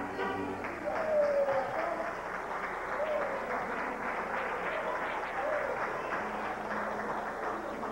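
Audience applauding after a mariachi song ends, with a few voices calling out over the clapping.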